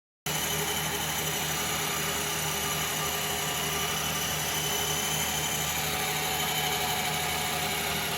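An electric treadmill running at low speed with a remote-control car driving on its belt: a steady mechanical hum with several held tones, starting abruptly about a quarter second in.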